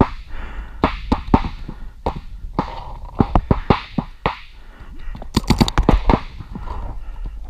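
Paintball markers firing across the field: sharp pops at uneven intervals, with a rapid string of loud shots about five and a half seconds in.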